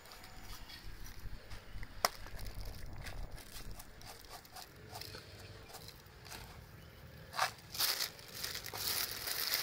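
Quiet handling sounds as a plastic jar is opened and its dry, crispy topping is shaken out onto an open oyster shell: a sharp click about two seconds in, then light scattered ticks and rustles, with a few short rustling bursts near the end.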